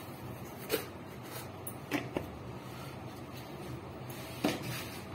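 Four light clicks and knocks of kitchen containers and lids being handled, the loudest about three-quarters of a second and four and a half seconds in, over a faint steady hum.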